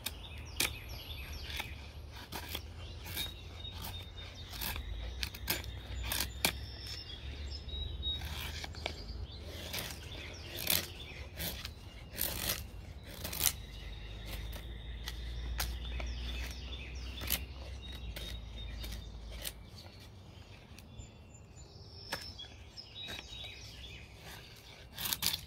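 Bushcraft knife carving curled shavings down a stick of weathered outdoor wood held upright on a stump: repeated scraping strokes at an uneven pace. Faint bird chirps can be heard in the background.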